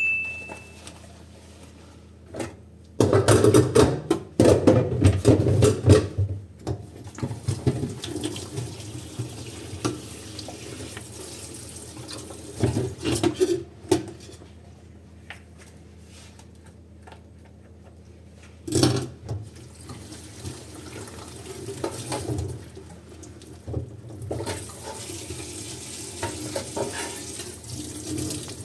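Dishes being washed at a sink: tap water running and splashing, with dishes clinking and knocking against each other. There is a loud stretch of splashing and clatter a few seconds in, and a sharp knock about two-thirds of the way through.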